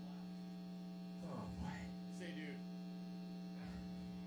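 Steady electrical mains hum in the sound system, a low buzz with a string of overtones above it. Faint voices come through briefly about a second and a half in.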